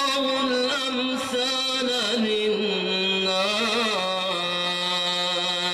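A man reciting the Quran in the melodic, drawn-out style, sustaining one long ornamented vowel with wavering turns. The pitch steps down about halfway through and settles into a steady held note near the end.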